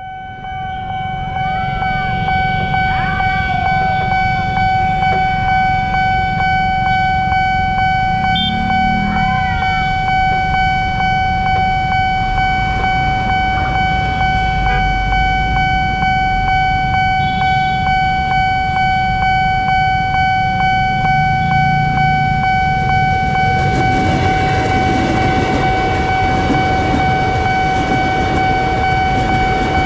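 Railway level-crossing warning siren sounding one steady, unbroken high tone over road-traffic rumble, with a few short horn toots early on and at about nine seconds. From about 24 seconds a KRL electric commuter train passes the crossing, its rumble swelling under the siren.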